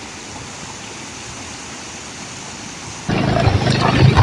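Steady rushing of a stream. About three seconds in it gives way abruptly to a louder motorcycle engine running.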